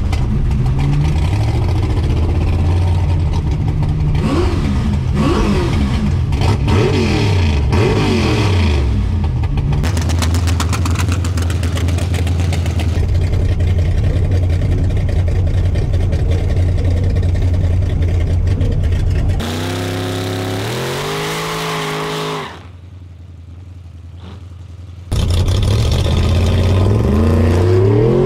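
Drag race car engines revving and accelerating hard, pitch climbing and dropping repeatedly, then holding a steady loud drone. About twenty seconds in comes a harsher, hissier engine note with falling pitch, then a few quieter seconds before the revving cuts back in abruptly near the end.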